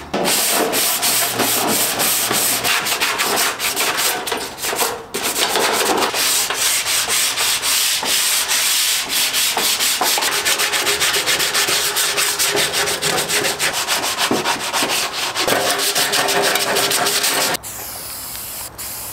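Sanding of hardened body filler on a steel wagon body panel: a loud, dense, scratchy rubbing made of rapid strokes, with a short letup about five seconds in. It stops near the end and gives way to a quieter sound.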